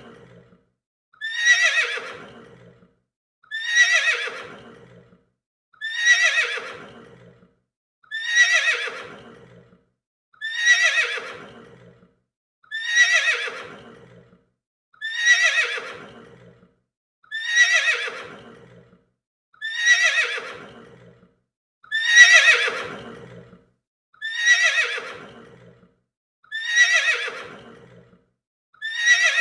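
Horse whinnying, the same call repeated at even spacing about every two seconds, each whinny starting high and falling in pitch as it fades.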